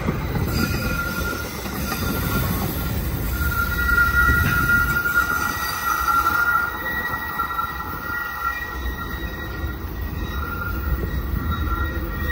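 Steel train wheels squealing against the rails in high, wavering tones that come and go, loudest a few seconds in, over the low rolling rumble of passing rail cars.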